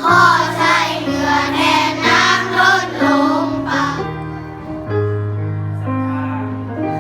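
Singers doing a vocal warm-up exercise over held accompaniment chords. The voices stop about four seconds in, and the chords carry on, stepping to new notes.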